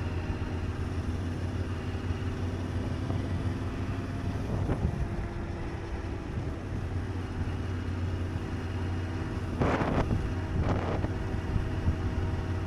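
Motorcycle engine running steadily while riding, with wind rushing over the microphone. Two short louder rushes of noise come about ten seconds in.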